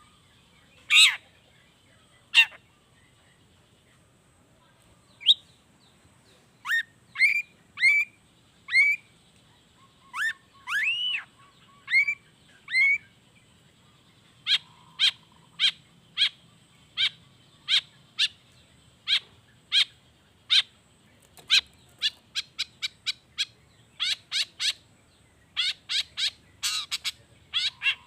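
Long-tailed shrike (cendet) calling: scattered sharp chirps and short upslurred whistles, then a regular run of clipped notes about one a second from about halfway, quickening into rapid clusters near the end.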